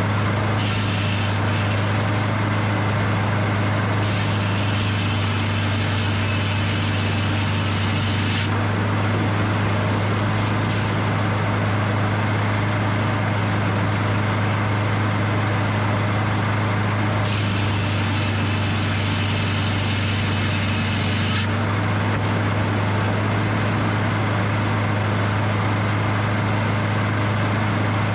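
Edmiston hydraulic circle sawmill running steadily with a strong low engine hum, overlaid four times by a few seconds of high hissing noise.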